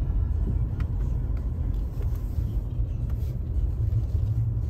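Steady low rumble of a 2011 Toyota FJ Cruiser's 4.0-litre V6 and its tyres, heard inside the cabin while driving at low speed.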